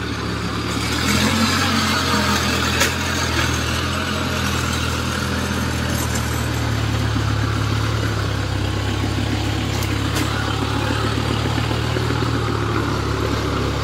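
Engine of a small tracked rice-hauling cart running steadily as it carries a full load of rice sacks.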